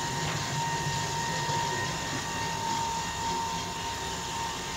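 Popcorn machine running during a test: a steady rushing hiss with a thin, steady high whine and a low hum underneath.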